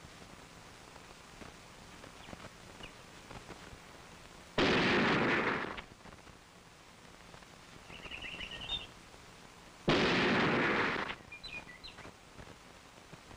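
Remington Model 742 semi-automatic centerfire rifle fired twice, about five seconds apart. Each shot rings on for about a second before fading.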